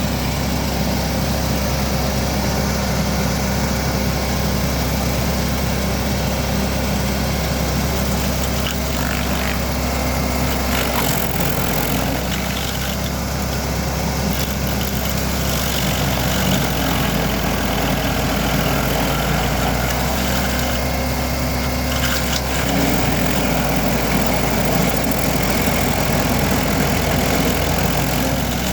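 Vermeer SC382 stump grinder's 37 hp engine running steadily at working speed while its cutter wheel grinds a dry hickory stump, the engine note and the chipping noise shifting a little now and then as the wheel bites.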